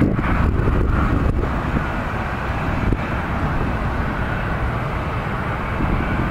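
Steady roar of jet airliner engines heard across an airport, uneven for the first second or so and then even.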